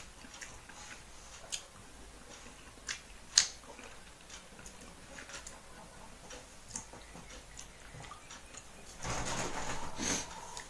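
Eating sounds: a person chewing and eating rice and fish curry by hand from a steel plate, with scattered soft clicks and one sharper click a few seconds in. Near the end comes a longer stretch of rustling as the hand mixes the rice and curry on the plate.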